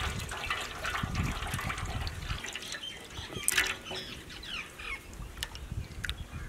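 Milk pouring in two thin streams from cartons into a wide metal tray of beaten eggs, a steady splashing trickle of liquid into liquid.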